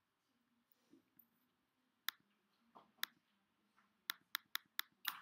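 Computer mouse clicks: two single clicks about a second apart, then a quick run of five or six clicks near the end, about four a second.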